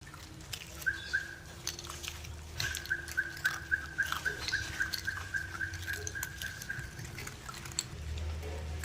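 Puppies feeding, with scattered small clicks of chewing and lapping. Over it runs a short high squeak that repeats about four times a second for several seconds.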